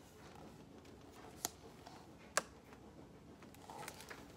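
Two faint short clicks about a second apart, then a soft paper rustle near the end as a picture-book page is turned.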